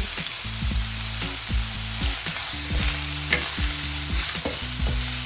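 Chicken pieces and onions sizzling as they fry in oil in a pan, with scattered scraping strokes as they are stirred.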